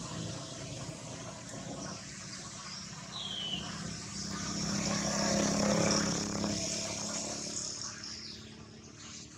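A motor vehicle passing: a steady engine hum that grows louder to a peak about six seconds in, then fades away. A single short falling chirp comes about three seconds in.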